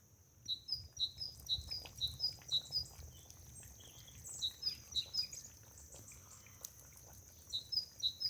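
A small bird chirping in quick runs of short, high, falling chirps, about three a second, with pauses between the runs. A steady high hiss runs underneath.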